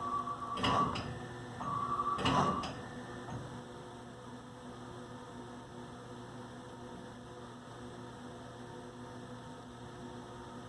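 Haas TM1 CNC mill moving its axes with a steady high whine, broken by two short knocks, while it draws with a pen. The whine stops about two and a half seconds in, leaving the machine's steady low hum.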